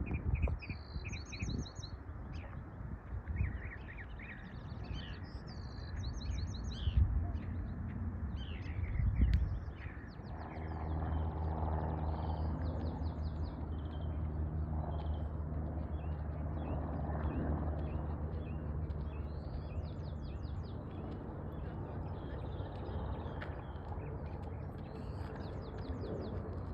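Small birds chirping and singing in short repeated phrases. About ten seconds in, a steady low engine hum comes in underneath and keeps going.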